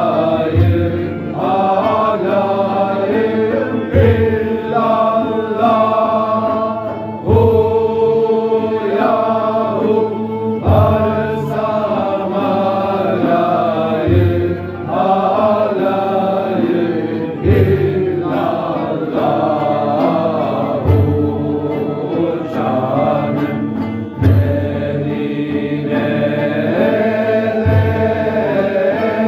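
Sufi dhikr of the Halveti-Jerrahi order: a group of men chanting the Divine Names together, with a sung melody over the chant and a deep low pulse recurring about every three and a half seconds.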